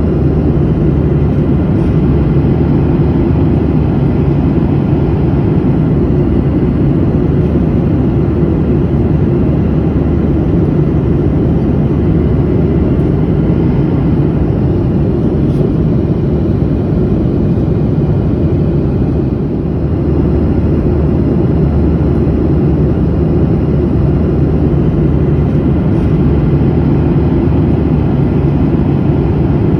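Steady cabin noise of an airliner in flight: the even, low-heavy drone of the engines and rushing air. It dips slightly once, about two-thirds of the way through.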